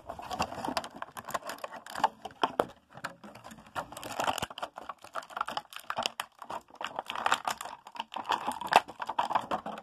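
Plastic blister packaging and a cardboard toy box being handled and opened: many quick crinkles, clicks and taps, with one sharper click near the end.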